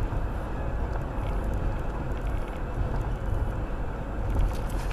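Steady road and engine rumble inside a moving Mercedes-Benz car's cabin, as picked up by a dashcam.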